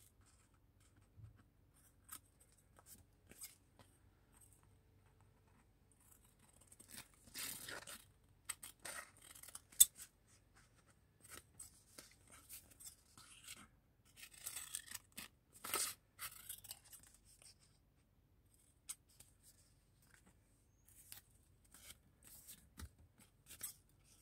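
Scissors snipping paper in short spells, with paper rustling as it is handled. A single sharp click about ten seconds in is the loudest sound.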